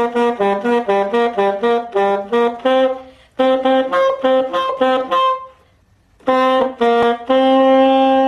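Saxophone played by a learner: a quick run of short notes, a break about six seconds in, then two short notes and a long held note near the end. The playing is not yet clean at the change between phrases.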